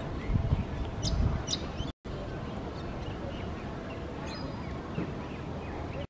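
Outdoor field ambience: scattered short, high bird chirps over a steady hiss. A low, gusty rumble fills the first two seconds, there is a brief gap about two seconds in, and the sound stops abruptly.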